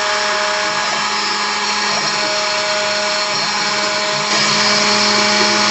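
CNC router spindle running and cutting while milling a guitar pickup part, with a steady whine and a tone from the axis motors that comes and goes as the machine moves. It gets louder about four seconds in.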